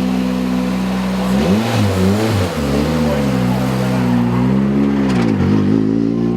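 Ford Fiesta R5 rally car's 1.6-litre turbocharged four-cylinder engine idling steadily, then blipped so that its pitch rises and falls several times from about a second and a half in.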